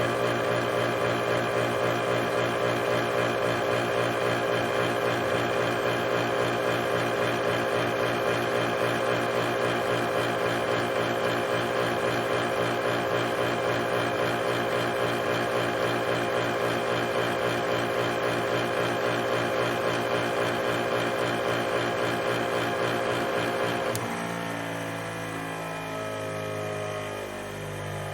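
Motor of a power grinder running at a steady speed, then switched off about four seconds before the end and winding down, its pitch falling as it slows.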